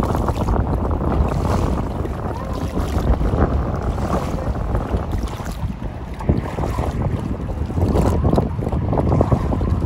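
Wind buffeting the microphone: a loud, rumbling hiss that swells and eases.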